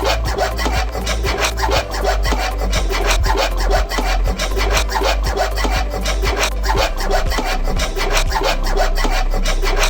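Fast, even rasping strokes of a hand tool scraping or cutting at PVC SWR pipe, about five strokes a second.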